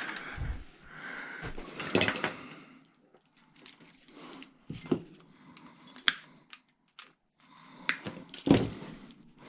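Scattered light clicks, clinks and knocks of small pieces of scrap metal being handled and set down, a few of them sharper than the rest.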